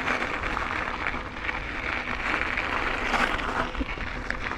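Mountain bike rolling along a dirt trail: a steady noise of tyres on dirt and gravel with a low rumble, a little louder about three seconds in.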